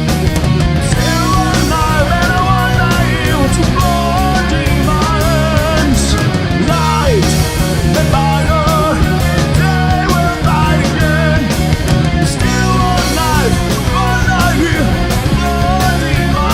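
Heavy rock band playing live: distorted guitars, bass and drums, with a wavering melodic lead line that bends in pitch above them.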